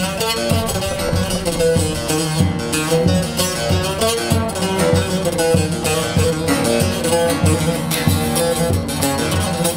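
Long-necked Turkish bağlama (saz) with a carved mulberry bowl, played solo as a folk tune: steady rhythmic strumming under a plucked melody.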